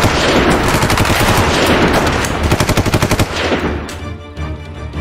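Sustained automatic gunfire, a dense rapid volley of shots that stops a little over three seconds in, after which dramatic background music carries on.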